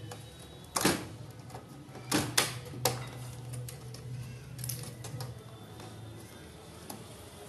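Plastic clicks and knocks from a Canon ink-tank printer's chassis and carriage parts being handled: one loud knock about a second in, then three quick ones a couple of seconds later, with a few lighter ticks after, over a low hum.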